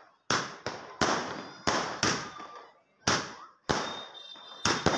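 Fireworks bursting overhead: an uneven run of about eight loud bangs in quick succession, each trailing off in an echo. A thin high whistle sounds near the end.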